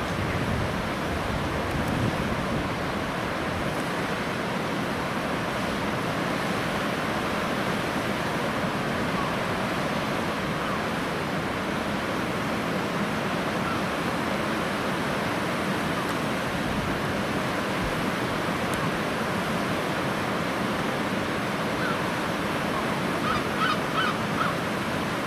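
Steady rush of river water, with a waterbird giving a quick run of about five short calls near the end.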